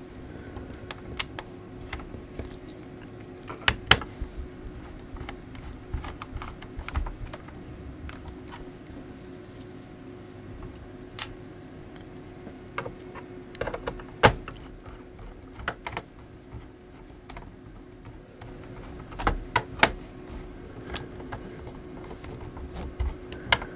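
Small screwdriver and hands working on a laptop's plastic bottom casing: scattered light clicks and knocks as screws are driven back in and the plastic is handled, over a faint steady hum.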